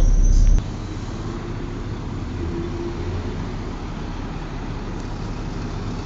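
Volvo B7TL bus standing with its engine running and its cooling fan giving the steady vacuum-cleaner-like 'hoovering' drone. A loud low rumble cuts off suddenly about half a second in, leaving the steadier drone.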